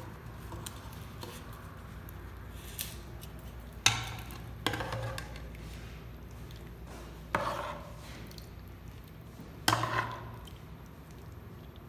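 Metal spoon clanking against aluminium cooking pots while chicken masala is scooped from one pot and spread over biryani rice in the other. There are four sharp clanks, each ringing briefly, over a steady low hum.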